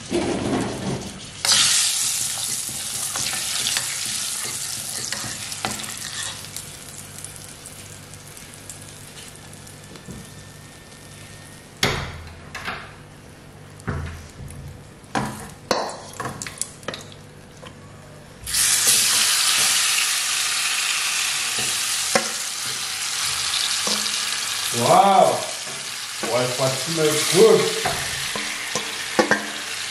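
Seasoned chicken going into hot curry oil in a stainless steel pot. The oil sizzles loudly and then dies down, with a few knocks and thuds from the bowl and pieces dropping in. The sizzle starts up again loudly about two-thirds of the way through, when the bulk of the chicken goes in and is stirred.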